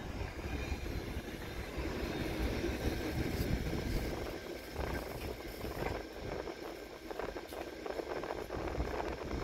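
Passenger coaches rolling slowly past on the rails, a rumble with scattered clicks that fades as the last coach goes by.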